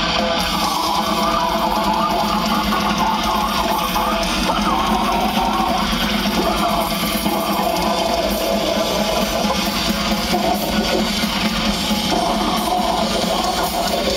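Metal band playing live through a stage PA, loud distorted electric guitar over a dense, steady wall of sound, heard from within the crowd.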